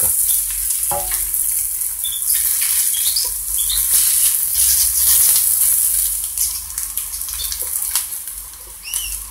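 Diced potatoes and onions sizzling in hot sunflower oil in a non-stick pan, nearly done and browning, turned with a spatula that scrapes and taps along the pan. The sizzling eases off somewhat near the end.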